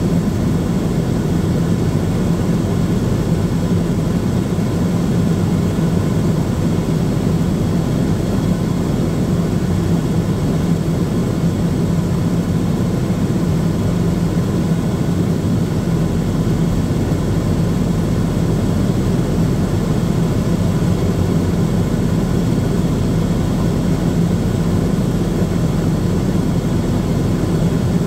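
Steady, unchanging engine drone inside a pushback tug's cab, with the tug's engine running and the coupled airliner's noise behind it.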